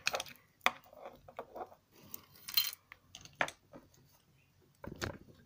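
Small plastic toy figures being handled and set down on a table: a few scattered light clicks and knocks, with a brief scratchy rustle about two and a half seconds in.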